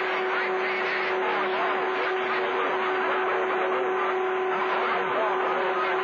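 CB radio receiver on channel 28 (27.285 MHz) picking up skip: a steady hiss of static with a steady whistle held through it, the heterodyne of an unmodulated carrier, and faint jumbled voices under the noise.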